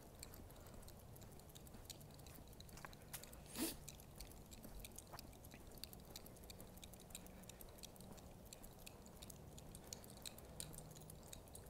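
Near silence, with faint rapid ticking and one brief, slightly louder sound about three and a half seconds in.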